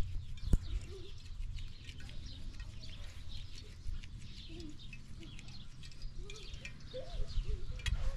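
Small birds chirping over and over, with a few lower gliding calls among them and a steady low rumble underneath. A single sharp click sounds about half a second in.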